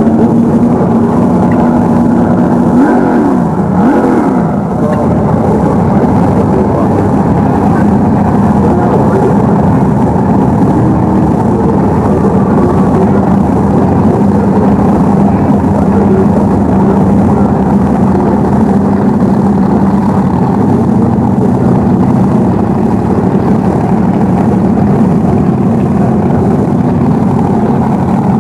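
Top Comp altered drag car's engine idling loudly and steadily after its burnout, with a brief rev up and back down about three seconds in.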